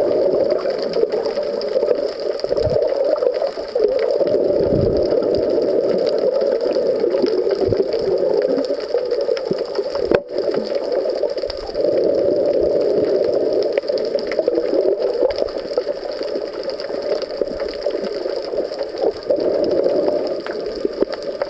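Underwater sea noise picked up through a waterproof camera housing: a steady muffled rushing hum, with a few dull low knocks.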